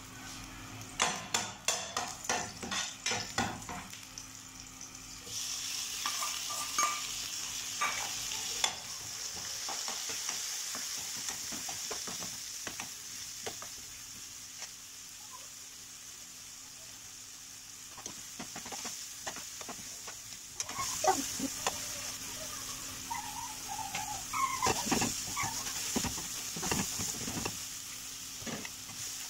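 Sliced onions sizzling in oil in a frying pan, with a spatula scraping and clicking against the pan. About five seconds in, chopped tomatoes are tipped in and the sizzle grows louder, then slowly dies down; stirring clicks and scrapes come back near the end.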